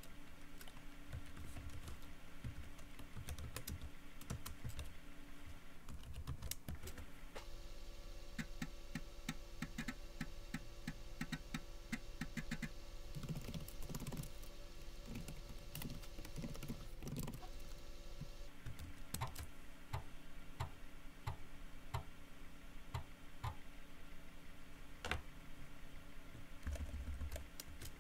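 Typing on a computer keyboard, sped up to double speed. For about ten seconds in the middle, a 5.25-inch floppy drive (a Teac FD-55GFR) spins up and its head clicks rapidly as DOS reads and writes the disk.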